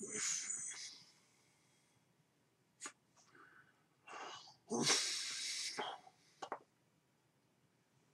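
A man's breathy, voiceless vocal sounds: hard puffs and hisses of air with no clear words, the longest and loudest lasting about a second, with a few short clicks between.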